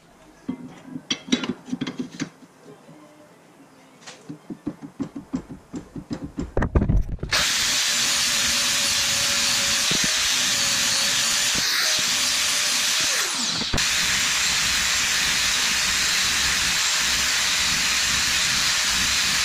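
Metal parts clinking and tapping as they are handled at the bench. About seven seconds in, an angle grinder starts and grinds steadily on a Ford spindle, a loud, even hiss over a steady whine, which dips briefly about two-thirds of the way through before picking up again.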